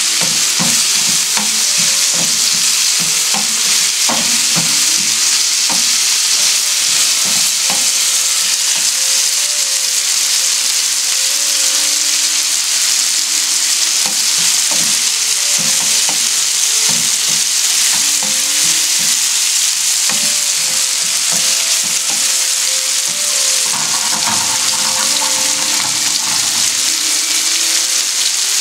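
Chicken breast pieces and sliced onion sizzling in hot oil in a nonstick frying pan: a steady high hiss, with a wooden spoon stirring and scraping the pan in many short knocks.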